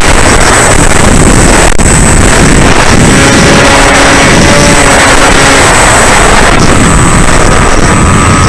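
Loud wind rush on the microphone with the whine of the Bixler 3's electric motor and propeller, its pitch rising and falling and settling higher near the end.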